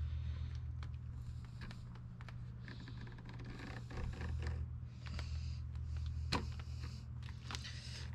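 Box cutter blade scraping and slicing through an old rubber handlebar grip, in irregular short strokes with a sharper click about six seconds in. A steady low hum runs underneath.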